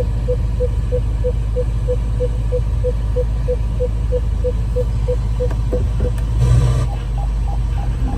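Range Rover Sport's electronic beeper sounding short, evenly spaced beeps about twice a second over a steady low engine hum; about six seconds in there is a brief rustle, and the beeps start again at a higher pitch.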